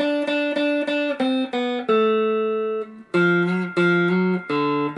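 Electric guitar, a Stratocaster-style solid-body, playing a single-note blues riff fingerstyle: a slide-guitar line worked out in standard tuning without a slide. A quick run of notes gives way to one held note about two seconds in, then after a brief break a short phrase with some notes slurred up into the next.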